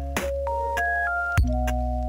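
Background music: a synthesizer melody of short stepped notes over held bass notes, with a drum hit about every second and a bit.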